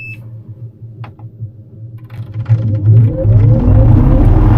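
Pipistrel Taurus G2.5 glider's electric motor and propeller spinning up to taxi on the ground. The whir starts about two and a half seconds in, rises in pitch, then holds loud and steady.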